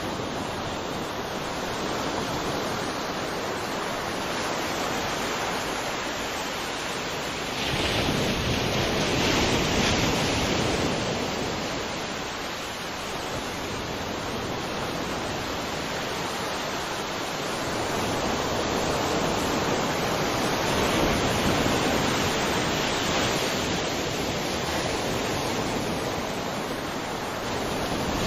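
Ocean waves breaking and washing in a continuous surf, swelling louder about eight seconds in and again past the middle.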